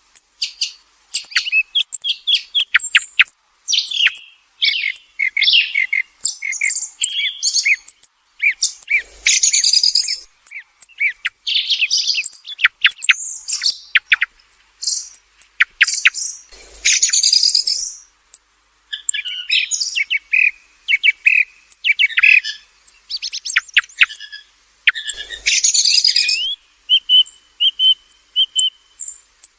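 Song thrush singing: a fast, continuous string of varied whistled and scratchy phrases, high-pitched, broken by short pauses.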